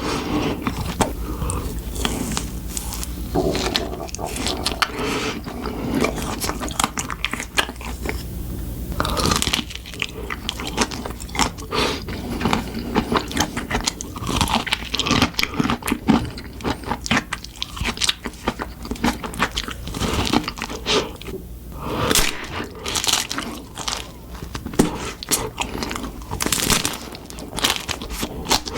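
Close-miked eating: crunchy food being bitten and chewed, a dense run of irregular crunches.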